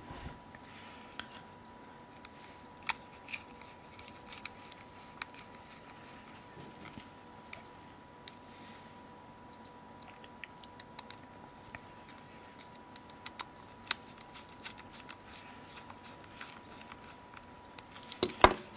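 Small scattered clicks and ticks of a precision screwdriver tip and tiny screws against a mobile phone's case as the last two screws are driven in by hand, with a cluster of louder clicks near the end.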